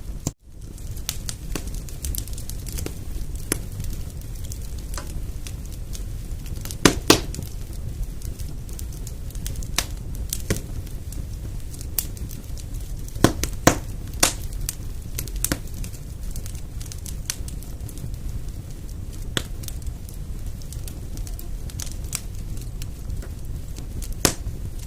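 Wood fire burning in a fireplace: a steady low rumble of flames with scattered crackles and sharp pops, a few louder pops about 7 and 13 to 14 seconds in. The sound drops out for an instant just after the start.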